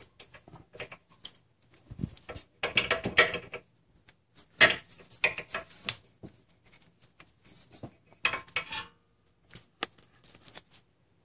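Ratchet wrench clicking as the brake line bolt is undone from a rear brake caliper, with metal tools clinking. There are three spells of rapid clicking, about three, five and eight seconds in, with scattered ticks between.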